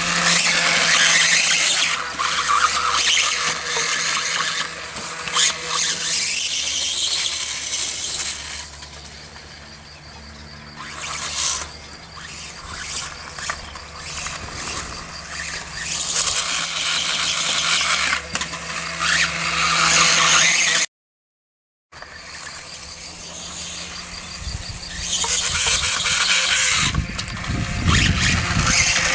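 Radio-controlled dirtbike's motor whining in uneven bursts as it speeds up and slows down, with a quieter stretch a third of the way in and a sudden second-long break past the middle.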